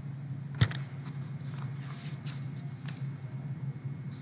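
Room tone with a steady low hum, a single sharp click a little over half a second in, and a few faint ticks.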